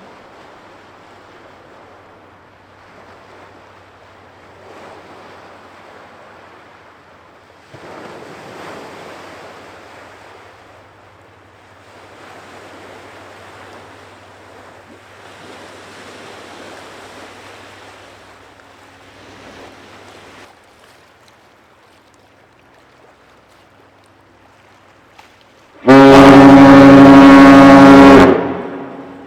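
Waves and wind with a faint low steady hum, then near the end the lake freighter American Mariner's horn sounds one long, very loud blast of a couple of seconds: the opening long blast of her departure salute.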